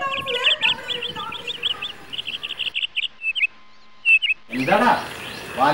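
Small birds chirping in rapid runs of short, high notes, which thin out about three seconds in. A voice comes in near the end.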